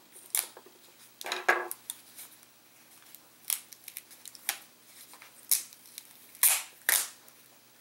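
Adhesive tape being peeled off the cells of a drone's lithium-polymer battery pack by gloved hands: a string of about eight short crackling rips with pauses between them, the loudest about a second and a half in and near the end.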